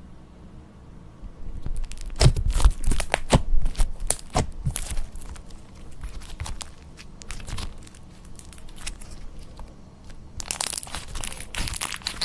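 Slime being squeezed and pulled with the hands, crackling and crunching. It starts after a short quiet moment, a run of sharp crackles follows, then scattered ticks, and near the end comes a dense stretch of crackling.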